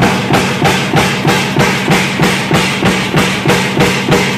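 Mechanical stamping press running continuously, its die striking metal at a steady rate of about three strokes a second, over a steady machine hum.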